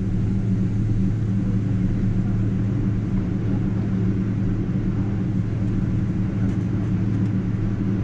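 Steady low drone inside the cabin of a Boeing 777-200ER airliner: engine and air-conditioning noise with an even hum and rush.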